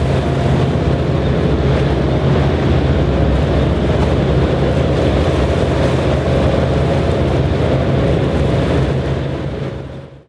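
Boat engine running steadily, a low drone, fading out near the end.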